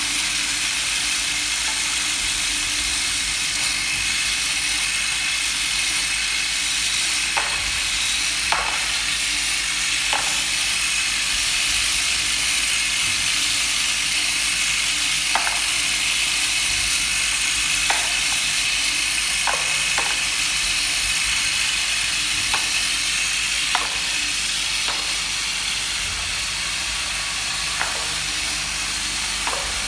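Vibratory bowl feeder running: a steady high rattling hiss of small metal parts vibrating along its spiral track and curved outlet track, with irregular sharp clinks every second or two.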